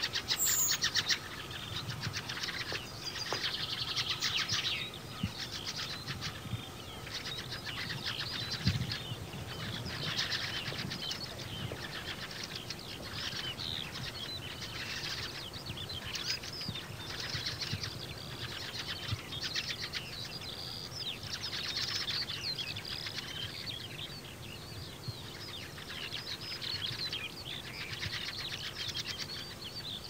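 Many small birds chirping and twittering in a continuous, dense chorus.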